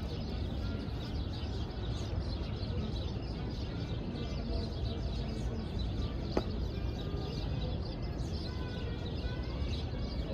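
Small birds chirping over a steady low city hum, with a single sharp click a little past the middle.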